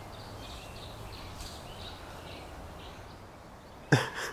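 Faint songbird chirps scattered over a quiet outdoor background, then a short, loud burst of sound near the end that stands out above everything else.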